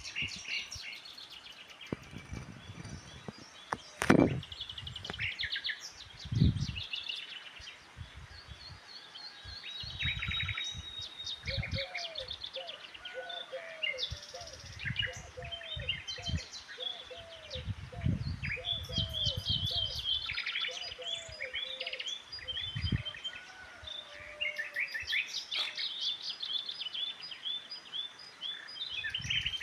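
Several birds singing and calling at once, with high chirps and trills throughout. Through the middle, one bird repeats short curved lower notes about twice a second. Low rumbles come and go, and there is a sharp knock about four seconds in.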